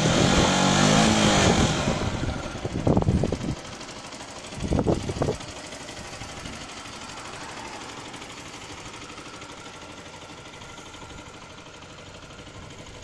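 Zontes GK 125's single-cylinder engine revved in neutral, its pitch rising and falling over the first two seconds. Two short throttle blips follow about three and five seconds in, then it settles to a steady idle.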